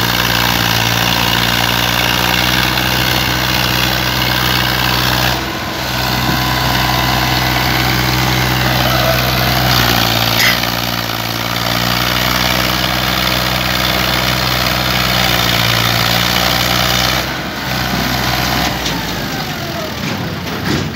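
Powertrac Euro 50 tractor's diesel engine running hard and steady as it pulls two heavily loaded sugarcane trailers, a load heavy enough to lift its front wheels off the ground. The engine note dips briefly twice and falls away near the end.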